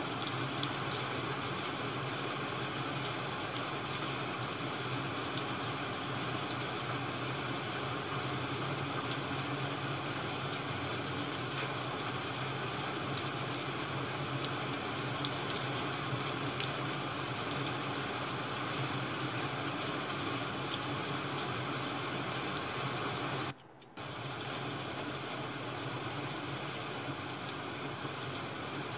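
Ambience track of steady rain mixed with crackling firewood: an even hiss with fine pops scattered through it. It cuts out for a split second a few seconds before the end.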